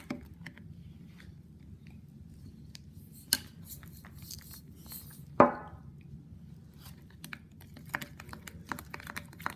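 A metal spoon stirring shampoo and salt in a plastic cup, with small scattered clicks and taps of the spoon against the cup; one sharp click a little past three seconds and a louder knock with a brief ring about halfway through.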